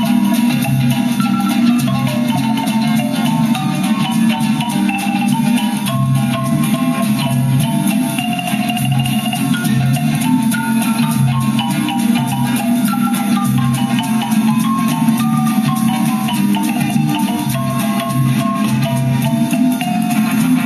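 Music playing from a vinyl LP at 33 1/3 rpm on a Fisher C-20 record changer built by BSR: a quick melody of stepping notes over a low, pulsing bass.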